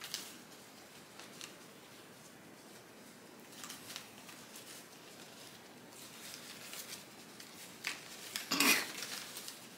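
A plastic zip-top bag rustling and crinkling against large monstera leaves as it is slid over them: faint scattered rustles, with a louder crinkle near the end.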